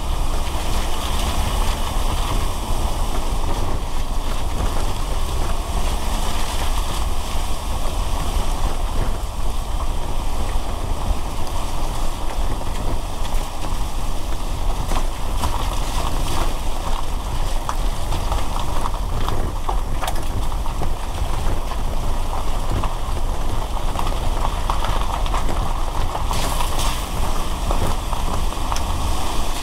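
A car driving on a wet road in the rain: a steady low rumble and tyre noise, with scattered sharp ticks of rain and drips hitting the car.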